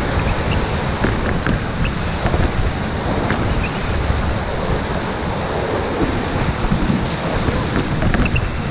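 River whitewater rushing and splashing around a paddled raft, with wind buffeting the microphone.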